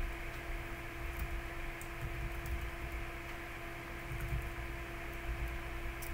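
Steady electrical hum and hiss, with faint, irregular computer-keyboard clicks from typing.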